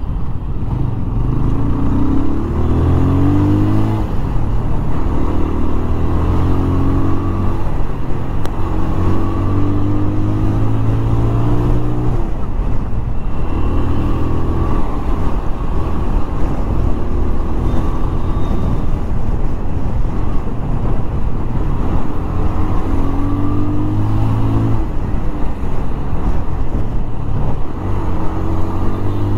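Bajaj Pulsar 220F's single-cylinder engine heard from the rider's seat while riding. Its note rises several times as the throttle is opened and drops back between rises, over a steady rush of wind on the microphone.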